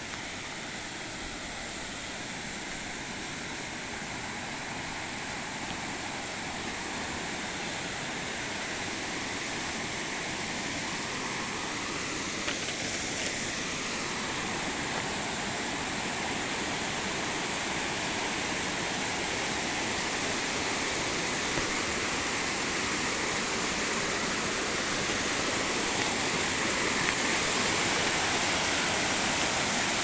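Waterfall pouring down a rock face: a steady rush of falling water that grows gradually louder as the spray and plunge come closer.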